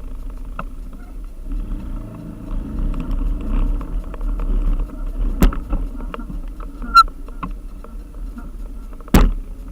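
Motorbike engine running steadily with a low rumble. Sharp knocks come about halfway through and again near the end, the second one loudest.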